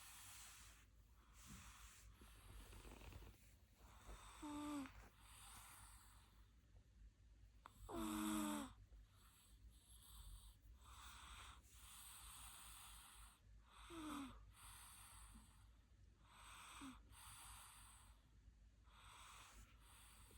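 A sleeping toddler about a year and a half old, snoring faintly with a soft breath every second or so. A few short pitched snores stand out, the loudest about eight seconds in.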